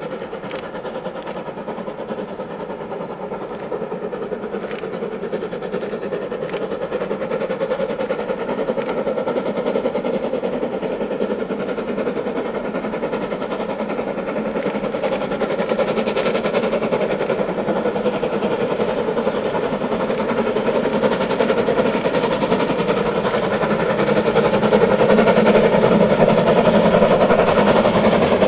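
S&D 7F 2-8-0 steam locomotive No. 53809 hauling a goods train, its exhaust beat and running sounds growing steadily louder as it approaches.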